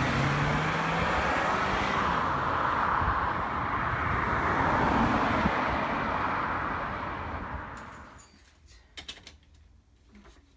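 A car driving away down the street, its engine and tyre noise steady for several seconds and then fading out about eight seconds in. Near the end come a few faint computer keyboard clicks.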